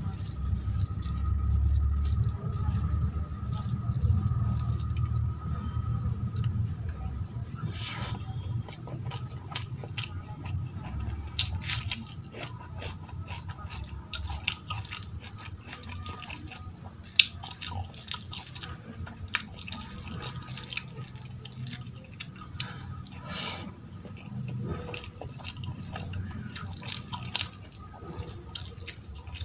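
Wet squelching and sticky clicks of fingers mixing runny dal into rice on a steel plate, with a low hum under the first few seconds.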